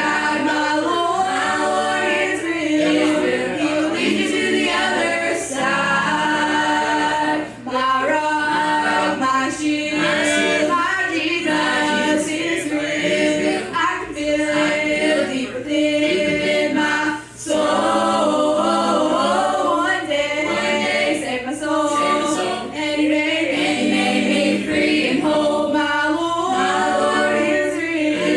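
A group of voices singing a gospel song together in harmony, with two brief breaths between phrases.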